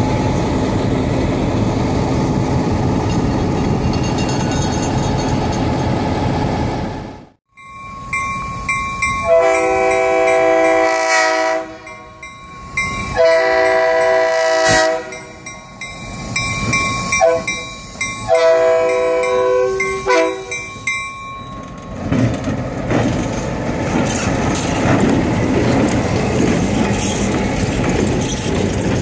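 A diesel locomotive's engine idles close by. After a break, a multi-note train air horn sounds two long blasts, a short one and a long one, the grade-crossing signal, as the train approaches. The cars then roll past with wheels clicking over the rail joints.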